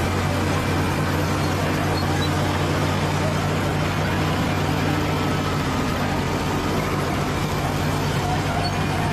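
Bulldozer's diesel engine running steadily under load, a constant low drone with no change in pitch.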